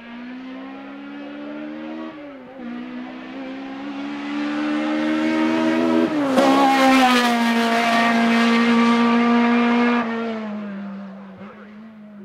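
Toyota AE86 Corolla race car engine at full throttle through a corner, its note climbing and dipping sharply about two seconds in and again about six seconds in. It is loudest as it passes close, then fades with a falling pitch as it pulls away.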